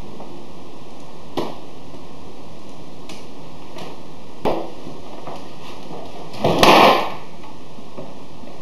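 Wooden chair moving on a hardwood floor: a faint click, then a sharper knock, then a short scrape about two-thirds of the way in, over a steady hiss.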